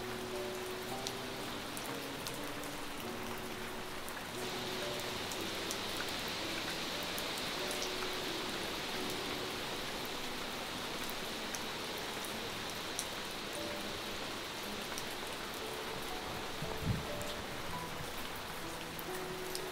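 Steady rain falling, an even hiss that turns brighter about four seconds in, with faint soft background music notes underneath. One low thump near the end.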